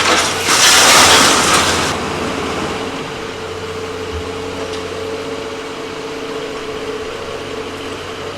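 Engine of a scrap-metal crusher's hydraulic power unit running steadily while the crusher blade is lowered. A loud hiss lasts about a second and a half, starting just after the beginning.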